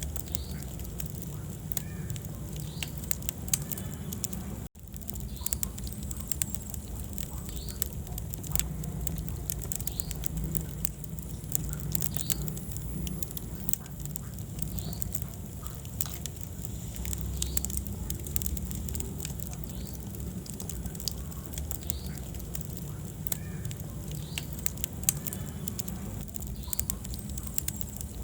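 Wood fire burning in a fireplace: many sharp, irregular crackles and pops over a low, steady rumble of the flames. The sound cuts out for an instant about five seconds in.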